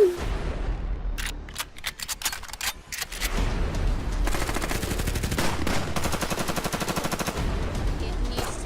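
Gunfire: a few separate shots from about one to three seconds in, then rapid fire, many shots a second, for about five seconds. A short falling tone sounds at the very start.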